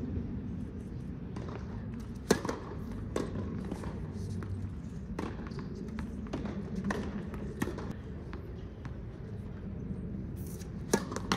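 Tennis balls bouncing on a hard court: scattered short knocks a second or so apart, over low steady outdoor background noise.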